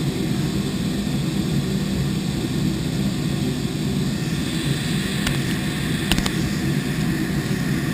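A steady low drone of running machinery, with three light, sharp clicks about five to six seconds in.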